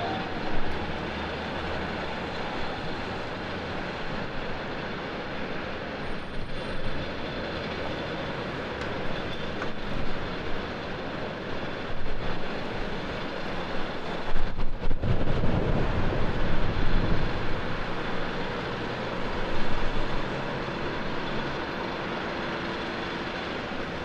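Steady broad roar of airport apron noise, with wind buffeting the microphone in strong gusts from a little past halfway until near the end.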